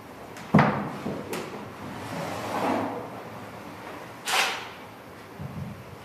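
A heavy thump about half a second in, then softer and sharper swishing sounds and a smaller thump near the end, from performers stepping and sliding on a wooden floor.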